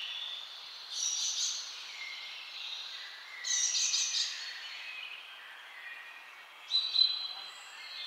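Birds chirping and singing in the surrounding trees, several at once, with three louder, harsher bird calls about one second, three and a half seconds and seven seconds in.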